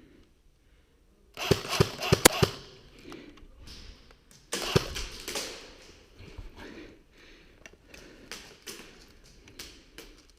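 Airsoft guns firing during close-quarters play: a quick string of about five sharp cracks between one and a half and two and a half seconds in, a rougher burst of noise near four and a half seconds, then scattered lighter clicks and knocks.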